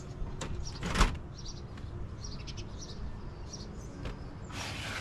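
A camper's screen door being handled: one sharp clack about a second in, a few softer clicks, and a short hissing noise near the end. Birds chirp faintly in the background.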